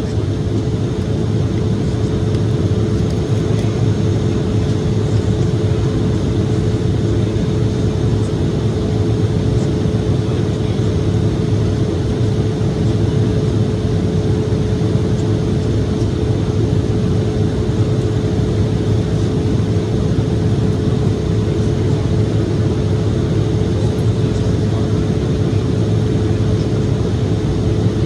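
Steady cabin drone of an Embraer E-175 in its climb: the hum of the twin GE CF34 turbofans and the rush of air over the fuselage, with a constant pitched whine.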